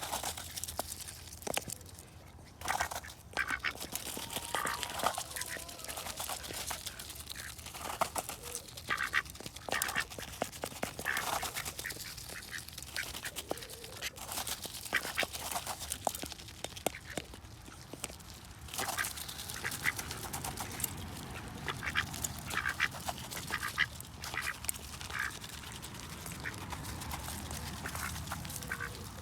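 Ducks quacking again and again in short calls, with a low steady rumble joining in over the last third.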